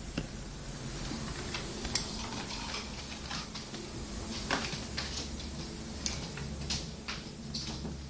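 Irregular clicks and taps from an Eclectus parrot moving about its wire cage, with one sharper click about two seconds in, over a steady low hum.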